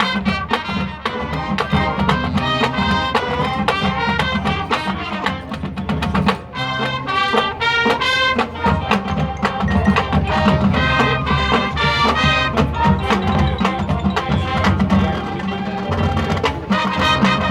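High school marching band playing: brass ensemble carrying the melody over a drumline and front percussion, with frequent sharp percussion hits, dipping briefly about six seconds in.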